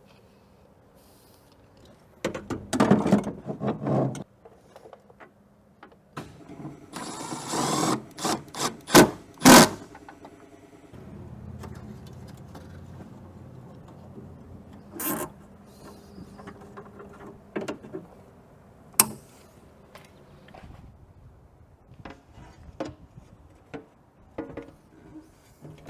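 Hand work on a car window regulator and its motor: metal parts clattering and knocking in irregular bursts, with several sharp clicks and a stretch of low steady hum partway through.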